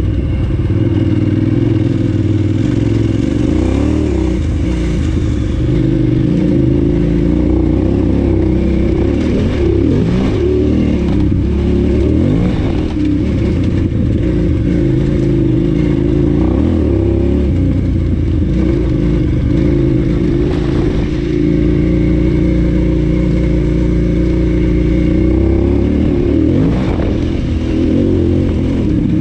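KTM 990 Adventure S's V-twin engine running as the bike is ridden over a rough dirt track, its pitch rising and falling repeatedly with the throttle. A few short knocks and rattles sound over the engine.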